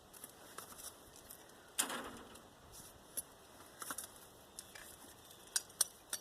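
Copper winding coils being worked out of an old electric motor's core: scattered light metallic clinks and scrapes, with one louder knock about two seconds in.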